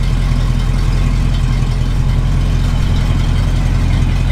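Engine of a lowered 1967–72 Chevrolet C10 pickup running at a steady low idle as the truck creeps away, a deep even rumble with no revving.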